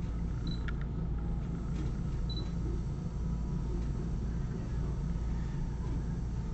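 Steady low background hum, with a faint click under a second in and two short, faint high tones.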